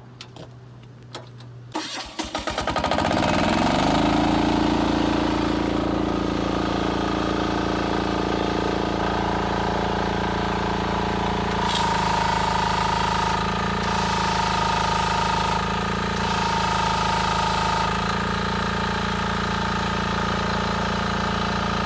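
Yanmar diesel engine of a 3000 PSI pressure washer started on the ignition key: a brief crank about two seconds in, catching at once, then rising to a steady run. A higher tone cuts in and out several times in the second half while the diesel keeps running.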